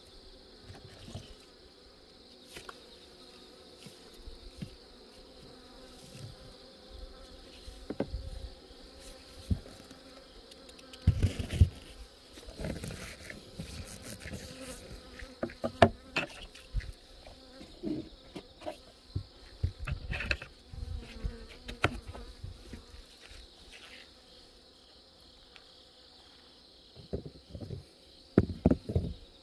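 Honeybees buzzing around an open hive, a steady hum under a constant high insect trill. Scattered knocks and bumps cluster in the middle and near the end.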